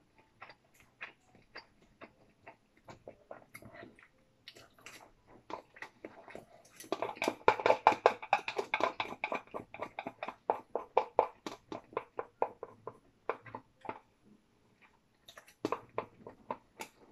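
Wooden chopsticks clicking and scraping against a plastic food tub, mixed with chewing. The clicks come thick and fast through the middle, thin out, then pick up again in a short burst near the end.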